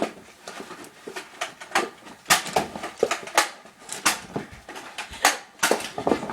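Nerf blaster fight: a quick, irregular run of sharp plastic clicks and knocks as foam-dart blasters are primed and fired and darts strike.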